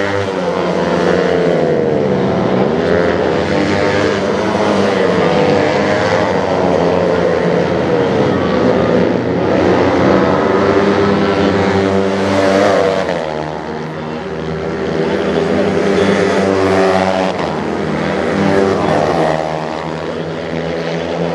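Several two-stroke 50cc minibike racing engines (Honda NSR50 and NS50 type) revving hard, their pitch rising and falling again and again as the bikes accelerate and slow through the corners. Two or more engines are heard at once, at slightly different pitches.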